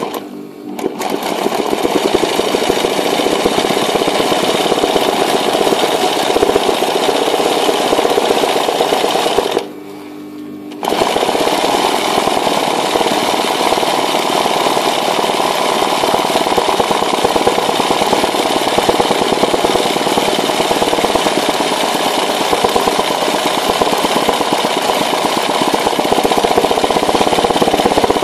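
Sewing machine running fast, its needle stitching free-motion embroidery through fabric held in a hoop. It stops for about a second roughly ten seconds in, then runs on.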